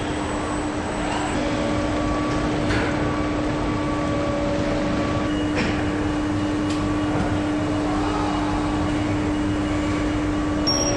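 Steady hum of factory machinery on an electric-motor production line, with a constant droning tone, a few fainter higher tones, and a few faint light ticks.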